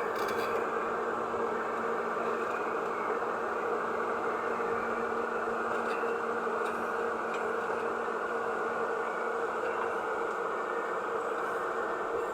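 Excavator's diesel engine running steadily with a constant drone and hum, no changes in speed.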